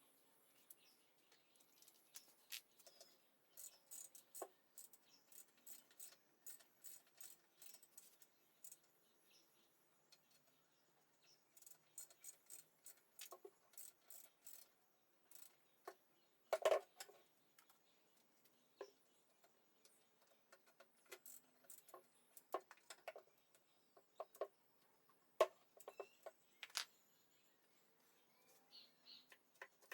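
Faint, irregular light clicks and taps, scattered one after another, with a louder knock a little past halfway and another later on.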